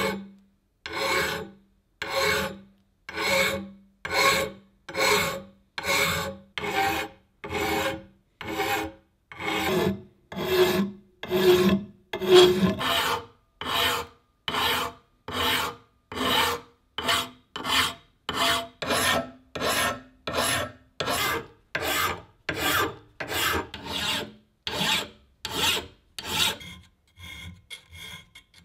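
Flat hand file rasping across the cast metal frame of an antique grater, in steady strokes about one a second. In the last couple of seconds the strokes turn quieter and quicker.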